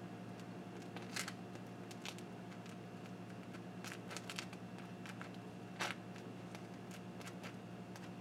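A heated butter knife's metal blade scraping across a slice of bread as it spreads softened butter, a few faint scratchy strokes over a steady low hum.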